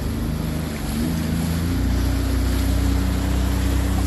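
Jet ski engine running under way, its pitch rising and the sound growing fuller and a little louder as the throttle opens, with wind on the microphone.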